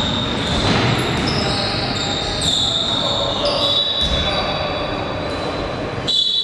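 Basketball game in a sports hall: a steady din of crowd voices with a ball bouncing on the court, and high, drawn-out squealing tones over the top.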